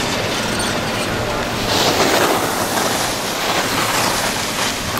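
Skis sliding and scraping over hard-packed groomed snow, a continuous hiss that swells with the turns about two seconds in and again near four seconds, mixed with wind rushing on the microphone.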